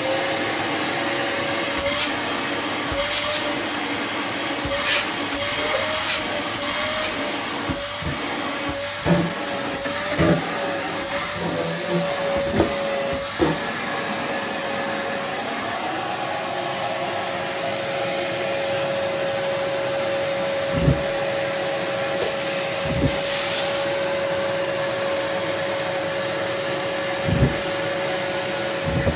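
Kärcher WD 3 wet/dry vacuum cleaner running. Its whine wavers for the first dozen seconds or so, then holds steady, with a few short knocks along the way.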